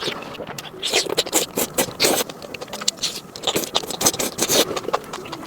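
Close-miked eating: chewing and mouth sounds, an irregular run of crisp, wet clicks and smacks, with a few louder bursts.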